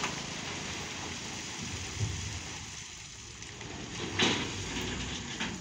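Load of rock and gravel sliding and tumbling off the raised body of a dump truck: a steady rush of falling stones with two heavier thumps, the second and louder about four seconds in.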